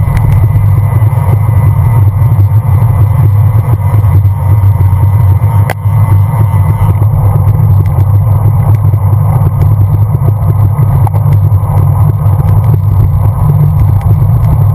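Wind buffeting a GoPro camera's microphone on a moving bicycle: a loud, steady low rumble, with one click about six seconds in.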